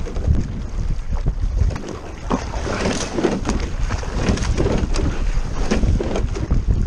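Wind rumbling on the microphone over water rushing along the hull of a double scull being rowed, with scattered sharp clicks.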